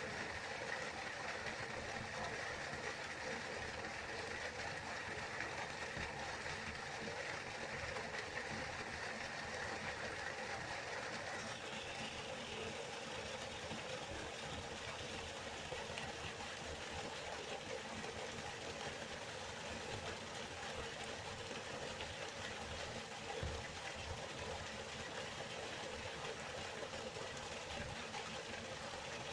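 River water flowing, a steady rushing sound with no breaks.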